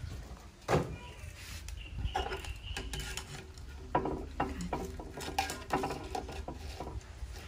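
Clatter of a plastic colander and a glass plate being set down and moved about on a wooden table. There is one sharp knock about a second in, then a run of lighter clicks and knocks in the second half.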